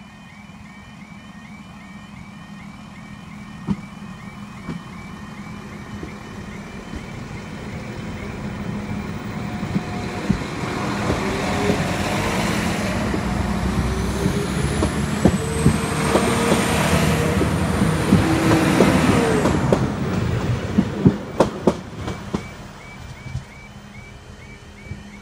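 Level crossing warning alarm sounding a repeating yodel, which the uploader reports as faulty. A Northern diesel multiple-unit train runs over the crossing, growing steadily louder with a rising high whine to a peak about three-quarters of the way through, then a quick run of wheel clacks over the rail joints as it clears. The alarm is heard again near the end.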